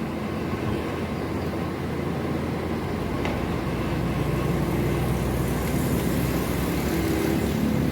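A vehicle engine running steadily, with a faint click about three seconds in.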